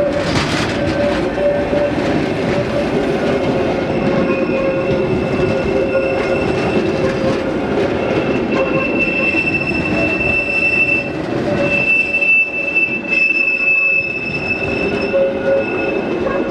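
Metre-gauge passenger coaches rolling past, their wheels squealing on a curve in a steady high ring over the rumble and clatter of the running gear. A second, higher squeal tone joins about four seconds in.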